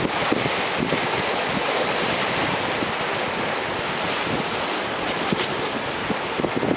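Ocean surf washing in, a steady rush, with wind buffeting the microphone.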